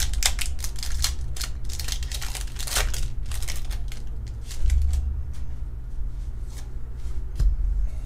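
Foil Pokémon booster pack wrapper crinkling and tearing open, with the cards sliding out and being handled. The crinkling is dense for the first few seconds, then thins to scattered clicks of card handling, over a steady low hum.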